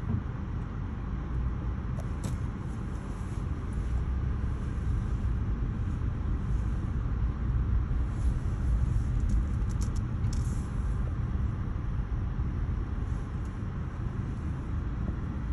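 Car driving along a rough road, a steady low rumble of engine and tyre noise, with a few faint clicks.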